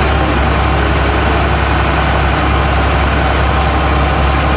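A loud, steady motor running with a deep hum, starting and stopping abruptly.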